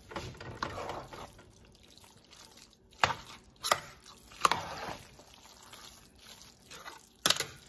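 Metal spoon stirring a thick, moist rice dressing in a large nonstick pot: soft scraping and squishing, broken by four sharp knocks of the spoon against the pot.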